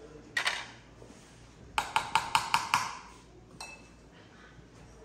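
Kitchen utensil clinking against a large stainless-steel mixing tray. One sharp clink, then about a second later a quick run of about six ringing taps on the metal.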